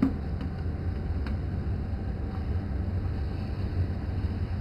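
A steady low hum with a few faint, light clicks, the clearest at the start and about a second in.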